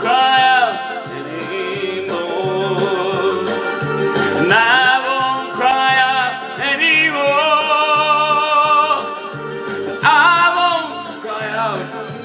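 Song with instrumental accompaniment: a singer holds long notes with vibrato, several phrases rising and falling, without clear words.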